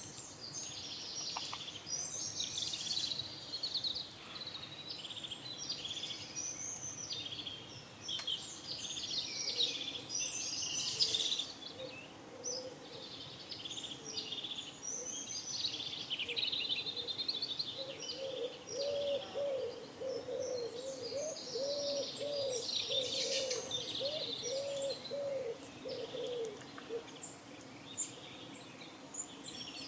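Many small songbirds chirping and trilling together in a busy dawn chorus. From a little past the middle, a pigeon coos in a run of low, evenly repeated notes beneath them.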